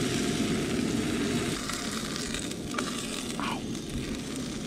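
Cheese frying and sizzling in a hot nonstick pan under tortillas, a steady crackling hiss that eases slightly after the first second or so, with a few light ticks from handling the pan.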